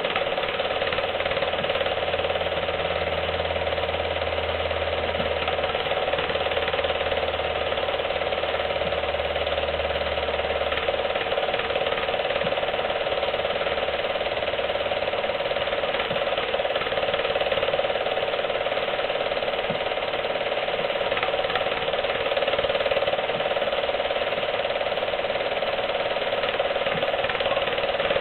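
Home-movie film projector running, its mechanism giving a steady clattering whirr. A low hum underneath dies away about a dozen seconds in.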